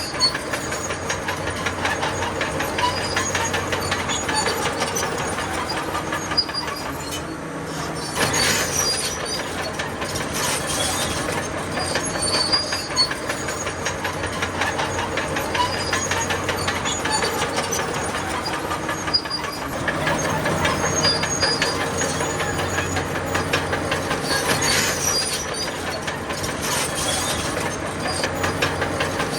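A bulldozer at work: its diesel engine runs steadily under a continuous rapid clanking from its steel crawler tracks.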